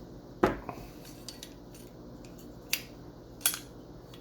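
Small pistol parts clicking and knocking as the slide of a G&G GTP9 gas blowback airsoft pistol is worked apart by hand: one loud sharp click about half a second in, then two more clicks in the second half.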